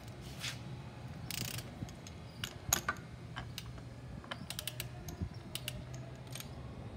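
Torque wrench ratchet clicking in short, irregular runs as a motorcycle engine's rotor bolt is tightened, with two brief rustles in the first two seconds.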